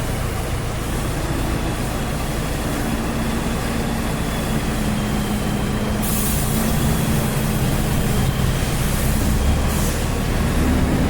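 JCB 3DX Super backhoe loader's diesel engine running steadily, with a short hiss about six seconds in and another near the end, and the revs rising a little near the end.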